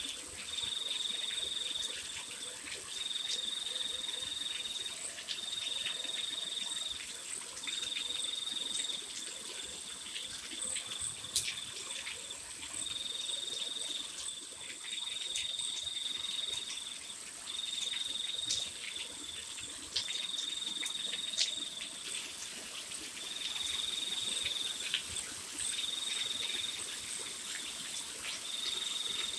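A cricket trilling in repeated high bursts of about a second or so each, separated by short pauses, over a steady higher insect whine. Rain patters on gravel and paving underneath, with a few louder drops now and then.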